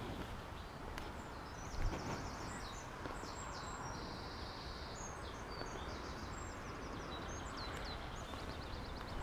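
Small birds chirping and twittering repeatedly over a steady low background noise, with one brief soft thump about two seconds in.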